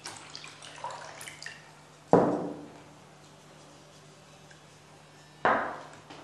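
Water poured from a small glass jar into a plastic tub of dark wood stain, splashing and trickling briefly to thin the stain. Then two sharp knocks, the loudest about two seconds in and another near the end.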